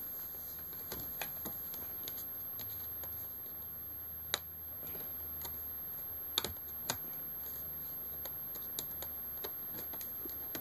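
Scattered light clicks and taps of laptop parts being handled as the screen panel is seated in its plastic lid case, with sharper knocks about four and six seconds in, over a steady low hum.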